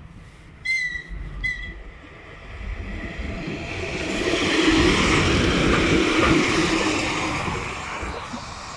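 VL80 electric locomotive giving two short high-pitched toots about a second in, then passing close by with the rumble and clatter of its wheels on the rails. The sound swells to its loudest midway and fades as it moves off.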